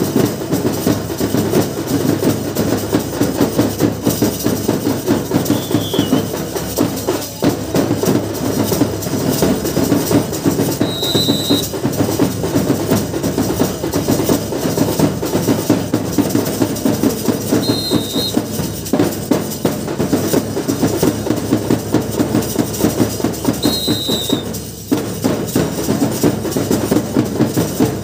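Drums beating a fast, unbroken rhythm, the kind of drumming that accompanies lathi khela stick-fighting. A short high note sounds over it every several seconds.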